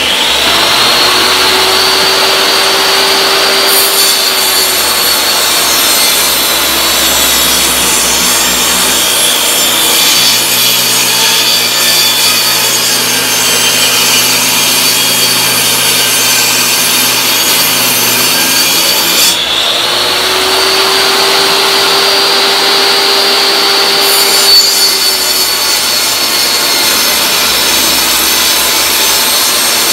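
Portable jobsite table saw ripping a hardwood flooring plank in two cuts. The motor's whine sags in pitch while the blade is in the wood and climbs back when it runs free: first about four seconds in, again about two-thirds of the way through, then a second cut near the end.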